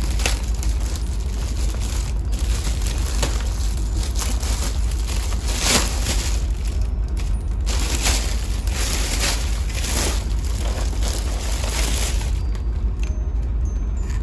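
Wrapping paper or packaging being torn and crumpled as a gift is unwrapped, in irregular crackly bursts, over a steady low hum.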